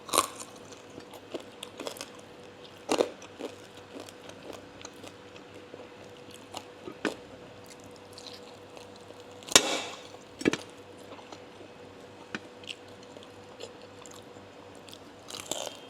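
Close-miked chewing and biting on crispy fried pork knuckle: scattered sharp crunches and mouth clicks, the loudest two about halfway through.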